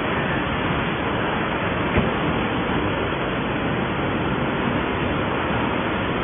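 Steady noise of production-line machinery, with the roller conveyor carrying particleboard planks, and a single light knock about two seconds in.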